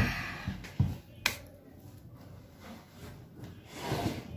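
Handling noise from a person moving close to the microphone: a loud bump at the start, two more knocks about a second in, then cloth rustling that grows near the end.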